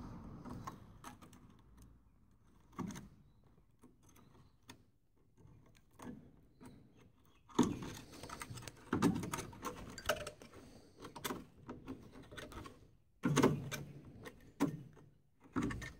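A long metal tool scraping and knocking inside the bottom of a rusty steel Land Rover pillar, breaking out packed dried mud and rust flakes. Irregular clicks and scrapes, sparse at first, becoming louder and busier about halfway in, with several sharp knocks near the end.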